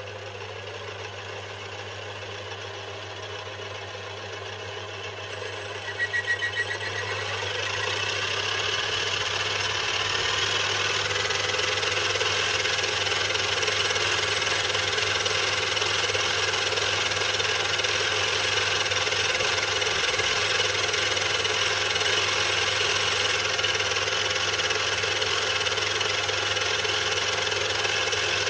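Small metal lathe running with a steady motor hum while a tool bores out the hole in a metal lever. The cut bites about six seconds in and carries on as a louder, steady cutting noise, easing the hole to a loose fit on its journal.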